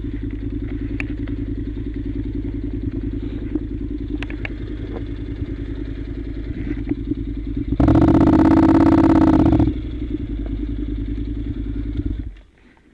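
Honda NC700's parallel-twin engine running steadily at low revs on a gravel track, with a few sharp clicks of stones. About eight seconds in, a much louder sound with an even pitch cuts in for about two seconds and stops abruptly. Near the end the engine sound drops away to a faint background.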